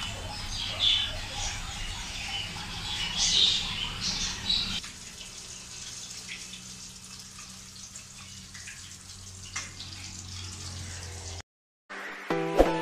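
Small birds chirping in short, quick high calls over a steady low hum for the first five seconds or so, then a quieter steady background. Near the end a short music jingle with bell-like tones begins.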